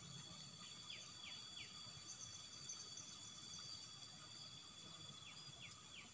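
Faint field ambience: a steady high-pitched insect drone of several layered tones, like crickets, with three short falling chirps about a second in and three more near the end.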